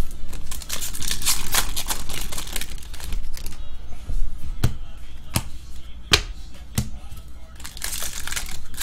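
Trading cards and foil card packs handled by hand: rustling as the cards are sorted and flipped, with several sharp clicks as cards snap against each other.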